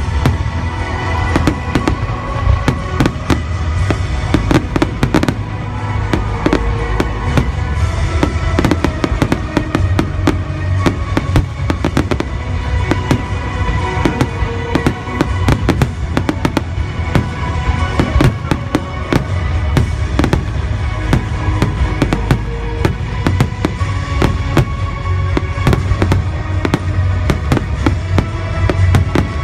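Aerial firework shells bursting in quick, irregular succession, many sharp bangs and crackles through the whole stretch, with music playing underneath.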